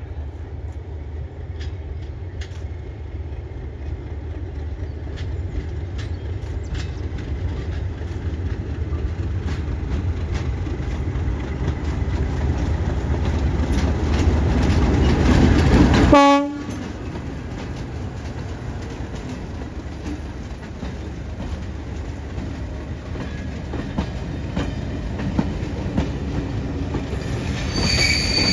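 Class 37 diesel locomotive approaching and passing at close range, its engine running with a low heavy rumble that grows steadily louder. About halfway through the sound cuts off abruptly and gives way to quieter rail noise of coaches rolling past with wheel clicks, and a faint high squeal near the end.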